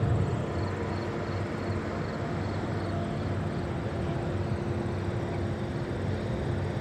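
Steady distant engine drone: a low hum with a few held tones, no rise or fall.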